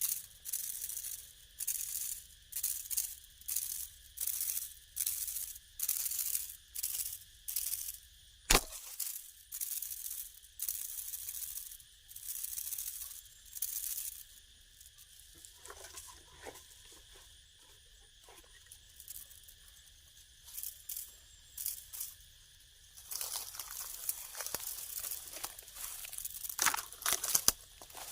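Rhythmic rustling and scraping, about one or two strokes a second, quieter for a while in the middle and busier near the end, with one sharp click in the first half and a faint steady high tone underneath.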